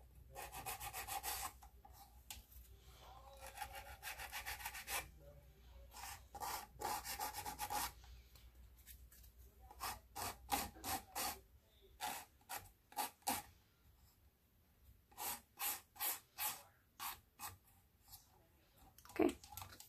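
A 180-grit nail file rasping over cured polygel nail extensions, shaping them. It goes in short back-and-forth strokes, in several bursts with pauses between.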